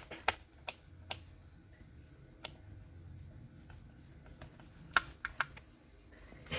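Scattered sharp clicks and taps, a handful in the first second or so, one around two and a half seconds in, and a quick cluster around five seconds in: small tools and plastic and metal laptop parts being handled during a repair.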